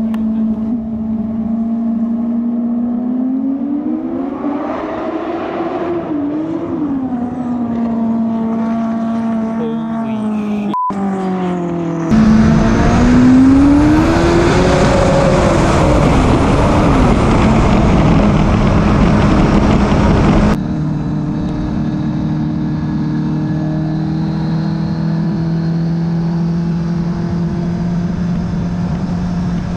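Turbocharged, methanol-fuelled four-cylinder jet ski engine running on the water, its pitch rising and falling as the throttle is worked. About halfway through, a louder rush of wind and water spray lasts several seconds over the engine, then the engine settles to a steady lower note.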